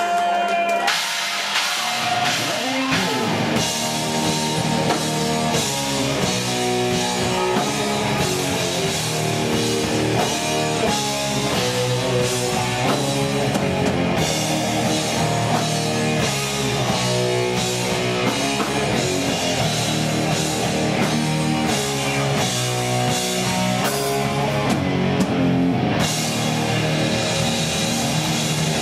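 Live heavy metal band playing loud, with distorted electric guitar, bass guitar and a Pearl drum kit keeping a steady driving beat; the full band comes in about a second in.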